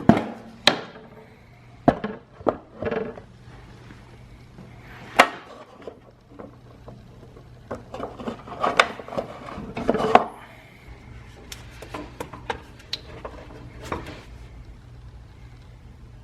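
Hands working a battery charger lead into its connector: scattered sharp clicks and knocks of plastic and metal parts being handled, over a faint steady hum.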